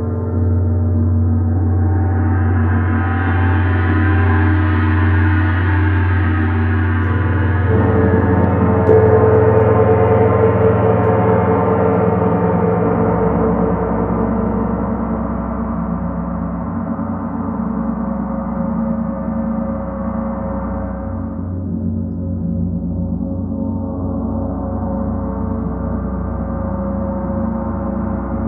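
Large gongs struck and rubbed with soft felt mallets, giving a continuous, swelling wash of many overlapping ringing tones. It builds to its loudest about a third of the way in, then eases off somewhat while still sustaining.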